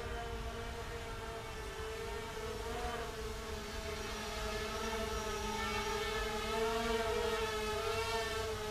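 Small electric motors of a distant FPV quadcopter humming with a slightly wavering pitch, growing gradually louder toward the end.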